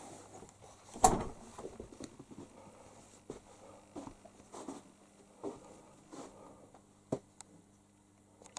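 A door shutting with one loud thud about a second in, followed by scattered faint knocks and footsteps and a couple of sharp clicks near the end, over a faint steady low hum.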